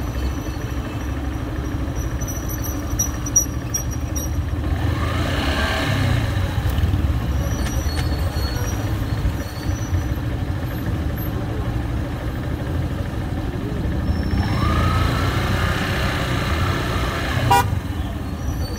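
Motorcycle riding through city traffic: a steady low engine and wind rumble, with an engine note rising in pitch about five seconds in and again around fifteen seconds.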